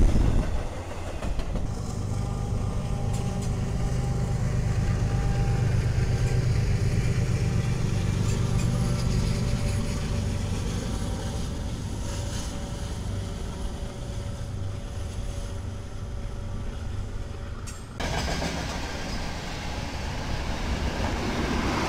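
A train going by with its locomotive engine running steadily, a low hum that swells and then eases off. The sound changes abruptly near the end.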